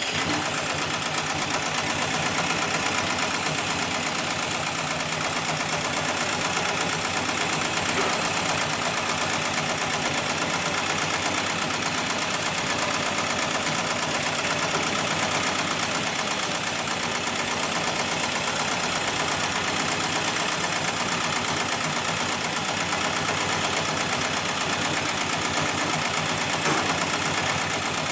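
Hightex 7273PLK heavy-duty pattern sewing machine stitching a pattern into sling webbing, its needle and barrel shuttle hook running with a fast, even rhythm of strokes at a steady level.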